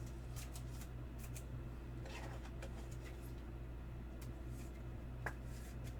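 Faint handling of trading cards and their plastic holders: scattered light scrapes and clicks, one sharper click about five seconds in, over a steady low electrical hum.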